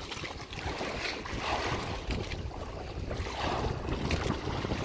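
Sea water sloshing and splashing against the side of a small wooden boat, with wind buffeting the microphone.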